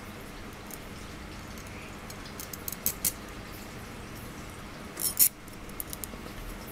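Light metallic clicks of a bolt, brass tubing and a miniature ball bearing knocking together as the bolt is passed through the tube into the bearing: a couple of sharp clicks about two and a half to three seconds in and another pair around five seconds, over a steady low room hum.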